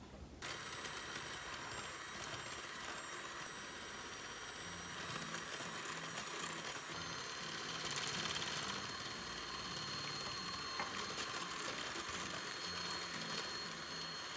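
KitchenAid electric hand mixer running steadily, its beaters whipping a thick cream mixture in a glass bowl. It makes a steady high motor whine that starts about half a second in.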